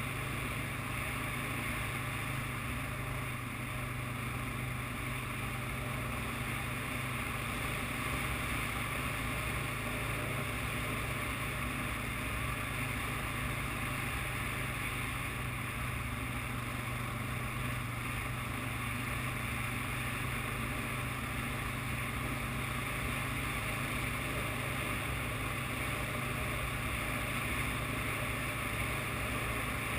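ATV engine running at a steady speed while the quad rides along a dirt trail.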